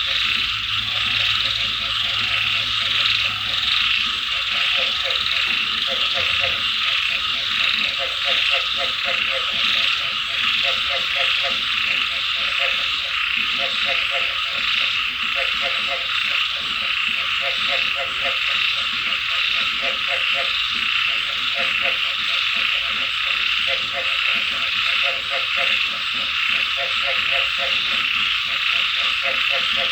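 Frogs croaking in rapid pulsed runs, repeating every second or two, over a steady hiss of rain and insects.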